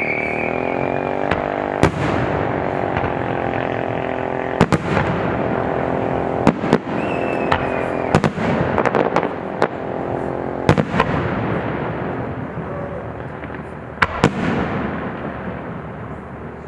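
Aerial fireworks show: a string of sharp bangs from bursting shells, several in quick succession around the middle, over a continuous rumble and crackle. A steady low hum runs under the first half.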